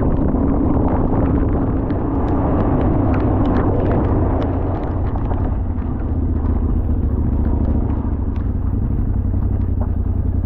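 Yamaha Ténéré 700's parallel-twin engine running while the bike is ridden, a steady low engine note that eases off about halfway through, with scattered short clicks over it.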